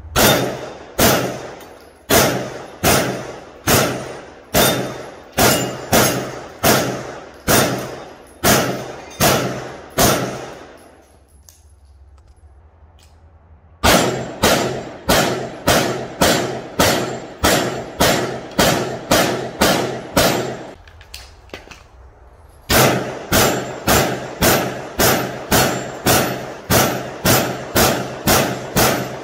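Aero Precision EPC-9 9mm carbine fired in three strings of about a dozen shots each, at a steady pace of roughly one to two shots a second, with pauses of a few seconds between strings. Each shot has a short ringing tail, which fits steel targets being hit.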